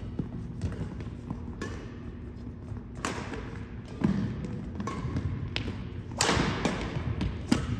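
Badminton doubles rally: sharp racket strikes on the shuttlecock about every second, the loudest about six seconds in, with footsteps thudding on a hardwood gym floor.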